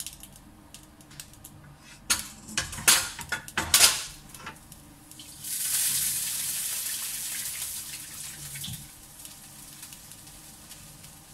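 A wooden spatula knocking and scraping against a nonstick wok several times as garlic and oil are scraped out. About five seconds in comes a hiss of water lasting a few seconds that fades away.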